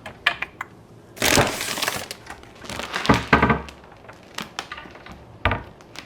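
Crackling and crinkling of food packaging with clicks and clinks of storage containers being handled. There are two longer crackling bursts, about a second and about three seconds in, and a sharp knock near the end.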